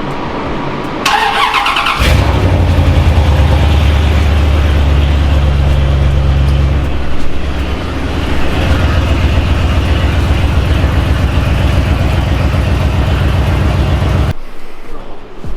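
Car engine cranked on the starter, catching about two seconds in and running loudly with an even low pulse, easing briefly around seven seconds before carrying on; it cuts off suddenly near the end.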